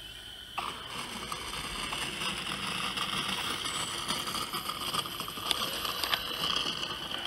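Propeller buzz of a radio-controlled model aircraft, starting suddenly about half a second in and growing gradually louder.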